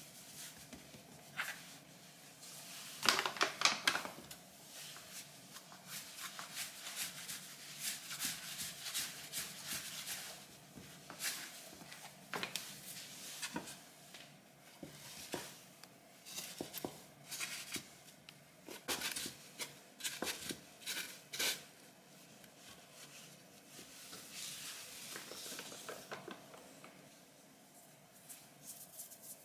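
Hands working floured rye sourdough dough on a countertop and turning it into a cloth-lined proofing basket: an irregular string of soft rustles, pats and scrapes, loudest in a cluster about three seconds in.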